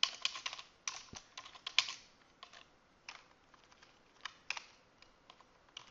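Typing on a computer keyboard: irregular keystrokes, a quick run of presses over the first two seconds, then scattered single presses.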